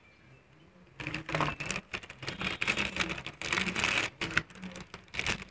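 Clear plastic packaging bag crinkling and rustling as earbuds are handled and pulled out of it, a dense crackle starting about a second in and tailing off into a few scattered crackles near the end.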